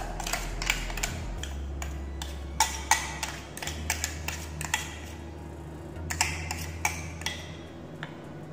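Stainless-steel mixer-grinder jar knocking and clinking as ground chicken and herb paste is scraped out of it onto a plate: a string of irregular sharp clicks and knocks with scraping in between.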